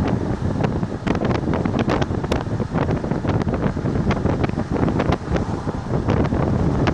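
Wind buffeting the microphone and road rumble from inside a moving car, with many scattered sharp clicks and pops throughout.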